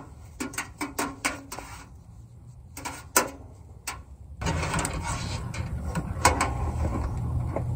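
Short clicks and rustles of a length of electrical wire being handled and pulled off a loose coil. From about halfway a steady rushing noise with a low rumble joins in.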